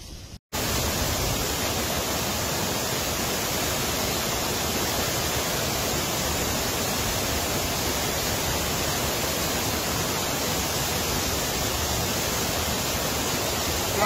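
Roar of a tall mountain waterfall: a steady, loud rush of falling water that cuts in suddenly about half a second in and holds even throughout.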